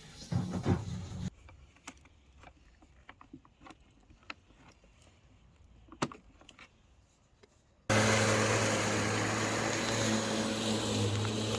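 A brief loud noise cuts off sharply, then a quiet stretch with scattered light clicks and taps. About eight seconds in, a Ryobi 18V ONE+ cordless garden tool's electric motor starts running at once, a loud steady whir with a low hum, cutting grass.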